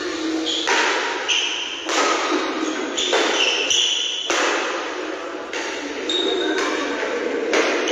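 Shuttlecock struck back and forth by badminton rackets in a doubles rally, about one sharp hit a second, echoing in a large hall, with short high squeaks of shoes on the court floor between shots.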